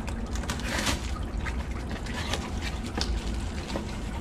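A small cardboard box being opened by hand: its flaps scraping and crackling in several short strokes, over a steady low rumble.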